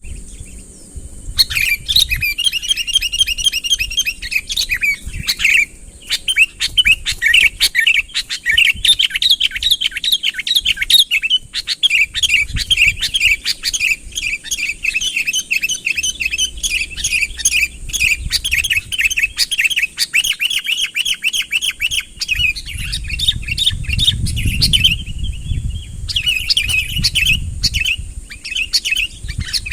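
Sooty-headed bulbul (kutilang) singing actively, a fast, near-continuous run of chattering notes with a few short breaks: its song to call in rival birds. A low rumble sits underneath late on.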